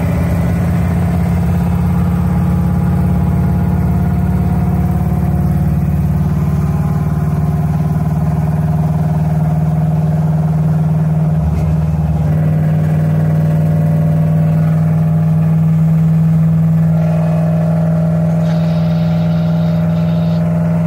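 Old muscle car's engine and exhaust droning steadily while cruising, heard from inside the cabin, with a slight change in the drone near the end.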